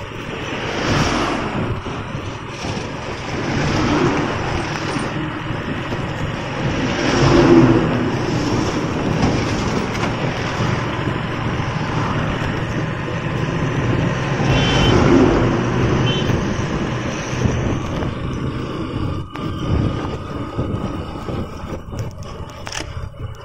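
Wind and road noise on a moving motorbike, with its engine running and other traffic around, swelling and fading several times.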